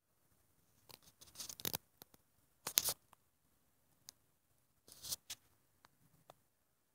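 Irregular dry crackling and rustling in short bursts. The loudest cluster comes about three seconds in, with a few single clicks between.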